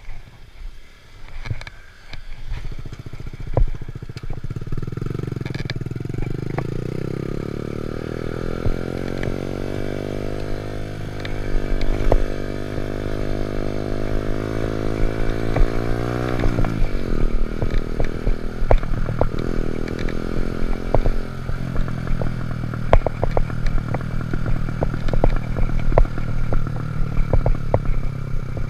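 Honda Monkey Z50 minibike's small four-stroke single-cylinder engine running. It comes in a couple of seconds in, its pitch climbs slowly until past the halfway point, then falls off sharply and it runs on steadily. Scattered clicks and rattles sound throughout.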